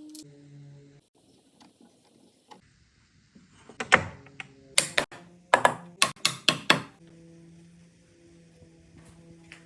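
A quick run of about seven sharp wooden knocks, typical of bar-stool parts being tapped together during assembly, starting about four seconds in.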